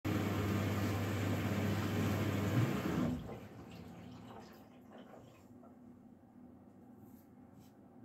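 Indesit Innex washing machine running water through with a steady electric hum, cutting off sharply about three seconds in, followed by faint trickling and drips.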